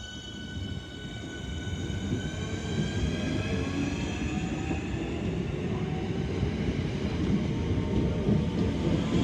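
Southeastern electric multiple unit pulling into the platform. The wheel and bogie rumble grows louder over the first few seconds and then holds, under a high traction-motor whine of several tones that falls slowly in pitch as the train slows.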